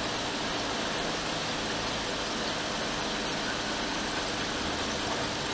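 Steady rushing hiss of a running air blower on the repair bench, even and unchanging.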